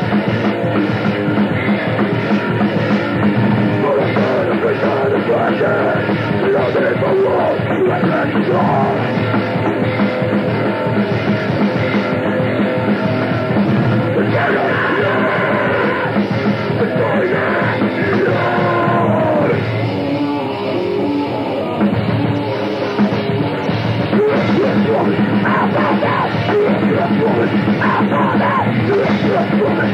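Grindcore band playing fast and loud on a lo-fi cassette recording: distorted guitars, pounding drums and yelled vocals, muffled with little treble.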